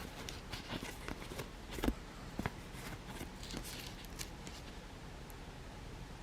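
Faint handling sounds of a cross-stitch kit's contents: scattered light clicks and soft rustles, dying away after about four seconds to quiet room tone.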